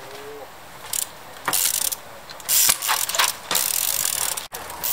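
Trials bike's freehub ratcheting in about five short buzzing bursts as the pedals are spun back and forth between hops.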